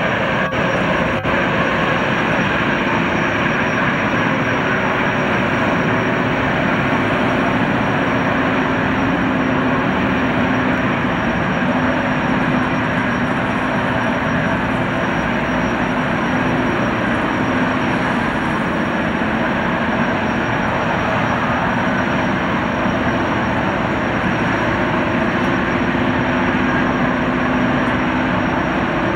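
Boeing Jetfoil 929-115 hydrofoil ferry's gas turbines and water jets running steadily: a loud, even jet-like rush with a steady hum and a thin high whine, like an aircraft engine.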